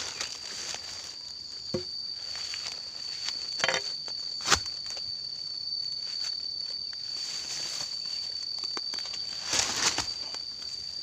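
Footsteps and rustling through undergrowth on a rocky forest path, with scattered sharp knocks and a cluster of steps near the end. Behind them, insects keep up one steady high-pitched drone.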